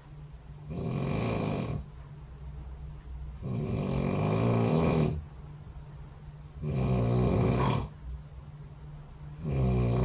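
A sleeping person snoring: four separate snores at an even pace, about one every two and a half to three seconds, over a steady low hum.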